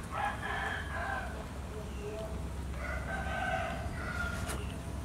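A rooster crowing twice, each call lasting over a second.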